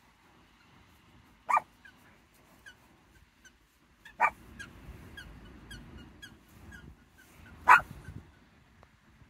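A dog barking three times, each bark short and sharp, about three seconds apart, the last the loudest.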